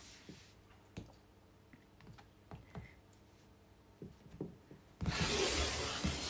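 Scattered light clicks and taps of a clear plastic ruler and rotary cutter being positioned on a cutting mat, then about five seconds in a rotary cutter's blade is run along the ruler through knit rib fabric, a steady scraping rush lasting just over a second.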